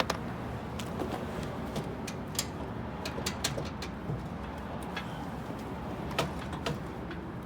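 Scattered light clicks and taps of metal parts being handled while the snowblower's differential gear and axle shafts are fitted, over a steady low background rumble.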